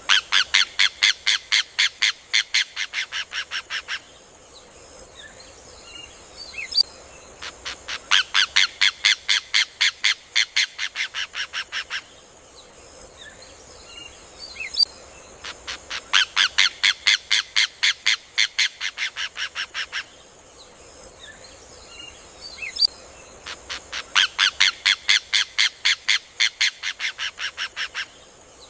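Rufous hornero (João de Barro) singing: four runs of rapid, loud, sharp repeated notes about eight seconds apart, each run fading toward its end, with soft chirps between runs and a steady high hiss underneath.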